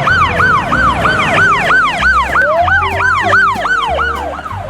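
Electronic police siren in a fast yelp, its pitch swooping up and down about three times a second, with a slower rising wail laid over it midway; it fades a little near the end.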